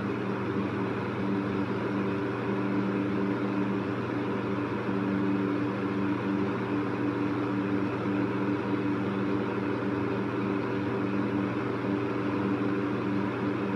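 Electric fan running steadily: an even whoosh of moving air over a low motor hum with a few steady tones.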